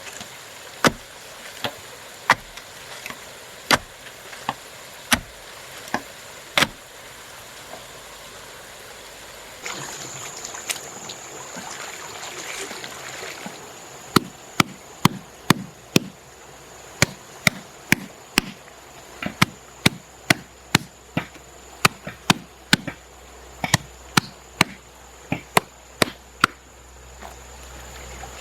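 Repeated sharp chopping blows on wood: about one every 0.7 seconds at first, then a pause filled with a rougher scraping hiss, then faster strikes about two a second.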